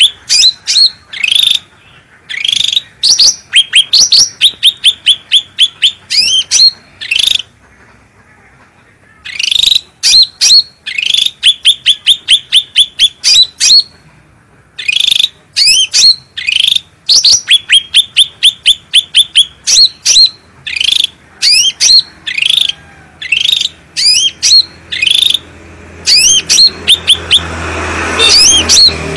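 Cucak rante songbird singing loud, rapid runs of sharp repeated chirping notes, about four a second, in phrases broken by brief pauses. A hiss and low hum build in the background near the end.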